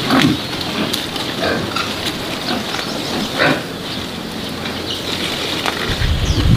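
Short animal calls, about four of them a second or so apart, over a steady low hum, with a low rumble near the end.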